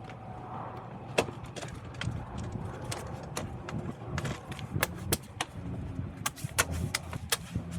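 Irregular sharp plastic clicks and knocks, about fifteen over several seconds, as a fender flare is pressed onto the vehicle's fender and its clips snap into place.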